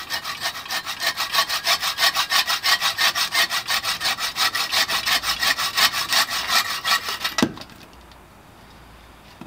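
24-inch takedown buck saw cutting through a 10-inch log in rapid, even push-pull strokes. The sawing stops about seven and a half seconds in as the cut goes through, with a thud as the cut-off round drops.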